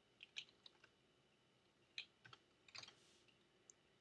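Faint, irregular keystrokes on a computer keyboard as a command is typed, in uneven little runs of clicks.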